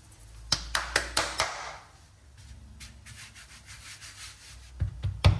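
Puff pastry being worked by hand on a floured granite countertop. A quick run of sharp knocks comes in the first second and a half, then faint rubbing, and a few dull thumps near the end.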